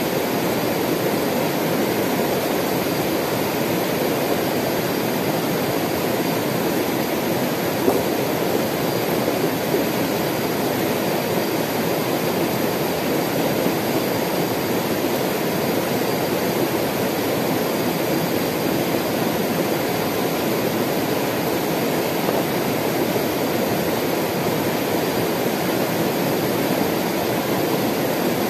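Shallow mountain river rushing over rocks and small rapids: a steady, unbroken sound of running water.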